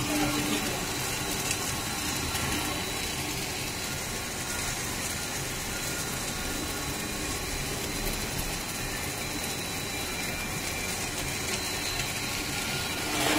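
Corn-chip extrusion production line machinery running steadily: an even mechanical hum and hiss with a faint, steady high-pitched whine.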